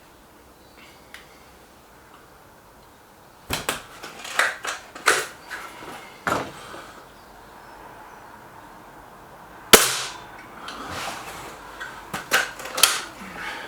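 Air rifle shooting: a string of sharp cracks and clicks that come in bursts a few seconds apart, from the shots and the pellets striking the targets. The loudest crack comes about ten seconds in.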